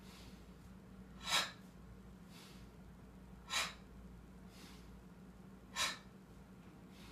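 A man's breathing, paced to a slow seated chest-raising exercise: three short, sharp breaths evenly spaced a little over two seconds apart, with softer breaths between them.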